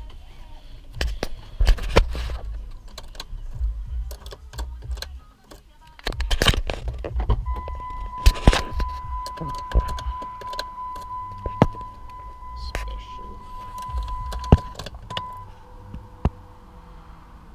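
Clicks, knocks and key jangling from handling inside a car's cabin. About halfway through, a steady electronic warning tone from the car sounds for roughly seven seconds, then stops.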